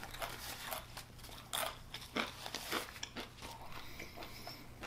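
Close-miked chewing of a crunchy fried Jack in the Box taco, with a few sharp, irregular crunches between quieter chewing.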